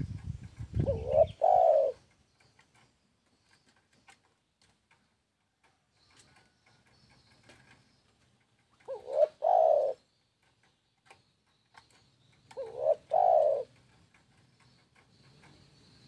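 Spotted dove cooing: three short two-part coo phrases, one about a second in, one about nine seconds in and one near thirteen seconds. A few low thuds come in the first second.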